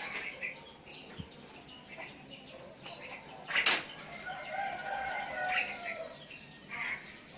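Sooty-headed bulbuls (kutilang) calling back and forth with short chirps and whistled notes. A brief loud burst of noise comes about halfway through, like wings flapping.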